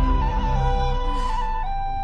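Film score music: a flute playing a slow melody of long held notes over a low bass that fades about halfway through.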